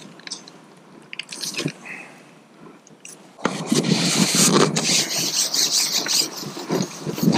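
A fishing pole being handled: a few light clicks, then about halfway through a loud, rough rubbing and scraping sets in, as the carbon pole slides while it is shipped back out.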